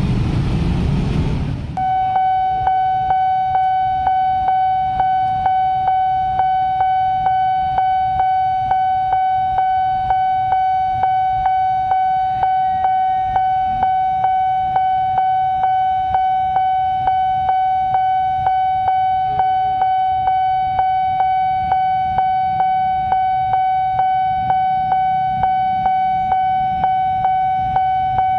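Level-crossing warning bell ringing, struck over and over about twice a second with a steady ringing tone between strikes. It takes over from road traffic noise almost two seconds in.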